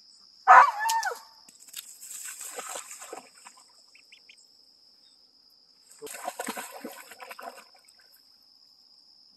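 A dog splashing in a pond as it wades and paddles in after a floating stick: water sloshes about two seconds in and again around six seconds. A short high-pitched cry comes just before the first splashing, the loudest moment, and a steady high insect drone runs underneath.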